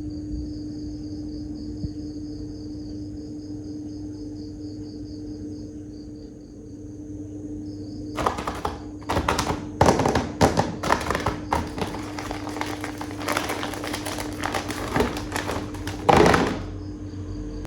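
A steady background hum, then about eight seconds in, crinkling and tapping of plastic packaging being handled, which stops sharply near the end.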